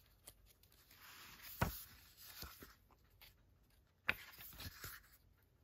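Pages of a book being turned by hand: two rustling swishes of paper, each with a sharp snap as a page flips over, one about a second and a half in and the other about four seconds in.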